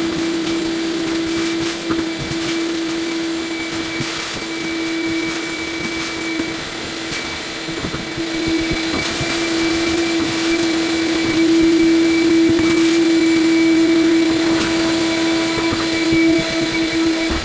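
A small motor running steadily with a fixed-pitch whine, a little louder in the second half, with scattered light knocks.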